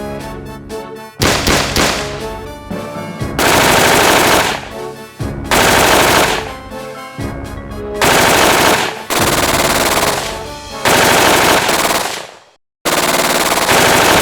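Bursts of automatic gunfire, four long bursts of one to two seconds each with quieter gaps between, over background music; the sound cuts out briefly near the end.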